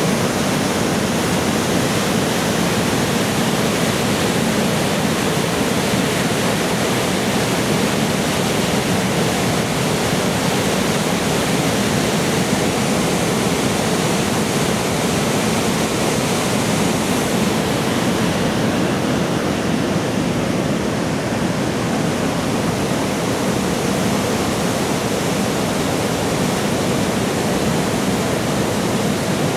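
Steady rush of a fast stream pouring as white water through a narrow, deep rock gorge.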